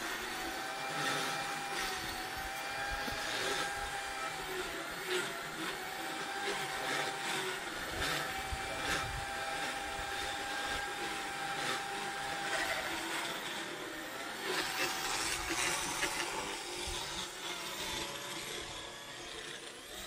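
Motorized equine dental float running in a horse's mouth, a steady whine that dips in pitch several times as it grinds the teeth, with a rasping scrape over it.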